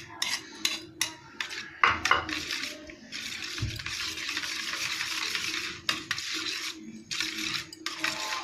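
Wire whisk clinking and scraping against a steel pot as cream is mixed into cooled custard. Two stretches of steady hiss come in the middle and near the end.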